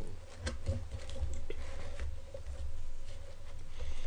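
Soft rustling and a few light clicks and taps as hands separate pizza slices in a cardboard pizza box, over a faint steady hum.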